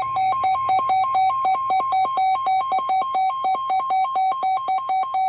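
Weather alert radio's alarm sounding for a severe thunderstorm warning: a harsh electronic warble switching between two pitches about five times a second, cutting off abruptly at the end.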